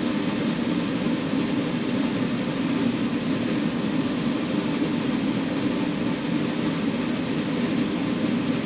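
Hurricane wind and heavy rain, a steady rushing noise with no letup.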